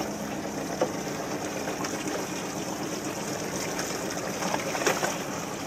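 Water sloshing and trickling against the hull of a small fishing boat, with a faint steady low hum underneath.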